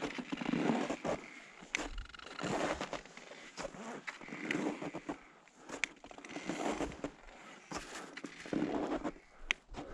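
Boots crunching slowly in packed snow, one step every second or so and uneven, with a few sharp clicks among them.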